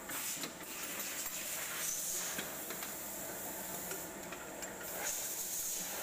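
Scraping, rustling and a few light clicks of a hand working among metal engine parts and hoses, over a steady hiss.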